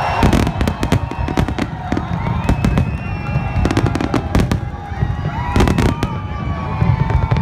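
Fireworks display in full barrage: many aerial shells bursting in quick succession, with sharp bangs several times a second over a continuous low rumble.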